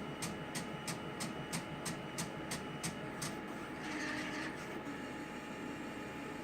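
XR-640 clicking steadily at about three clicks a second, the fault noise that came back after repair; the clicks stop a little over three seconds in, followed by a brief hiss.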